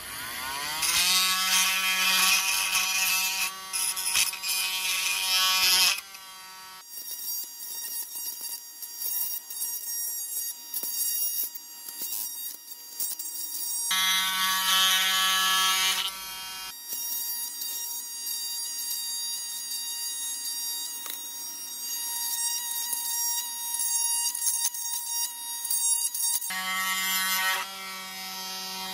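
Cordless oscillating multi-tool with a plunge-cut blade running as it cuts away the inside of a plastic battery-pack top. Its buzz spins up at the start, its note changes several times as the blade bites into the plastic and lifts off, and it winds down near the end.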